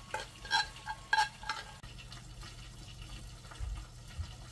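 Kitchenware clinking: several sharp metal and ceramic clinks of utensils and dishes in the first two seconds as the cooked food is served. After that comes a low steady hum with a few dull thumps.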